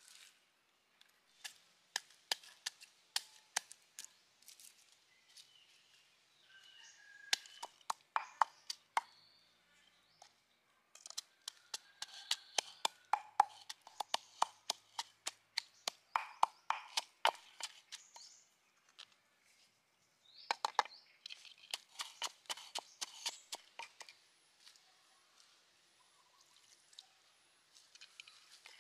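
Wooden pestle pounding red chilies and garlic in a wooden mortar: runs of quick, sharp knocks with short pauses between. Near the start, a knife cuts squid on a wooden board.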